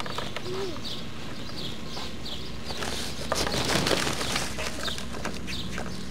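Birds chirping, short high calls repeated a few times a second over steady outdoor background noise, with a brief louder rustle a little past halfway.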